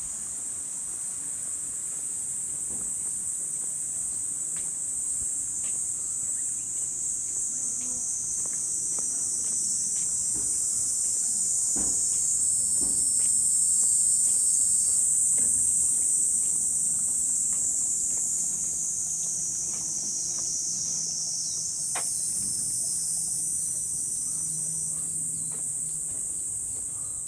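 Chorus of cicadas: a steady, high-pitched buzzing that swells to its loudest about halfway through and eases off again, with a few faint knocks.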